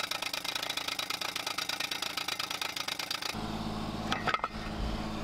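Air-powered Rhino PD-55 post driver hammering down a steel fence post, a fast, even clatter of about ten blows a second. A bit over three seconds in it gives way abruptly to a steady low engine-like hum with a few knocks.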